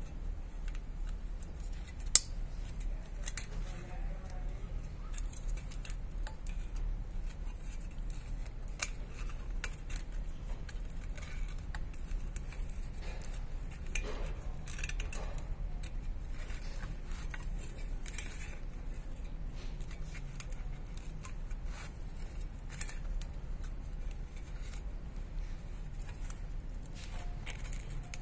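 Scattered small metallic clicks and clinks of hands and tools working on a power tiller's recoil starter parts, with one sharper click about two seconds in, over a low steady hum.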